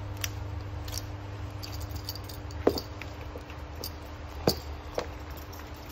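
High-heeled shoes knocking on a wooden floor: a few separate sharp clacks, the two loudest about two and a half and four and a half seconds in, over a steady low hum.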